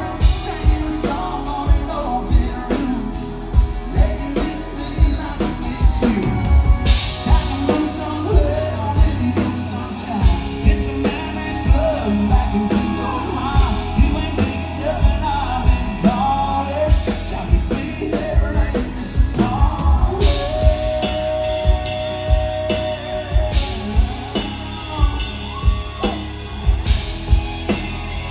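Live country band playing with a man singing lead into a microphone, heard from the audience: a drum kit keeps a steady beat under electric bass and the other instruments, and a long held note comes a little past two-thirds of the way in.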